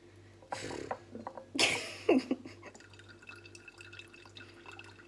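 Orange juice squirting and dripping into a tall drinking glass as an orange half is squeezed by hand, with two short spurts about half a second and a second and a half in, then softer dripping.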